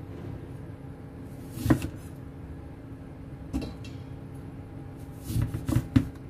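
Chef's knife slicing through a lemon and knocking on a wooden cutting board: a sharp knock about two seconds in, another just before four seconds, then a quick run of knocks near the end, over a steady low hum.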